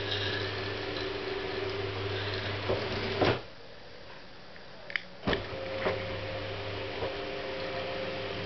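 Electric motor of a skylight roller blind running steadily as the blind closes, stopping with a knock about three seconds in. A couple of faint clicks follow, then it starts again with a knock about five seconds in and runs on as the blind reopens.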